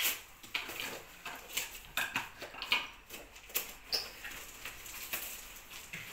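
Packaging and gift wrapping rustling and crinkling in quick irregular scrapes as packages are handled and cut open with scissors.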